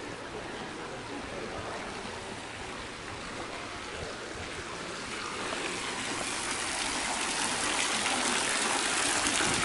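Small water jets of a fountain splashing into a stone pool, a steady rush of falling water that grows louder through the second half.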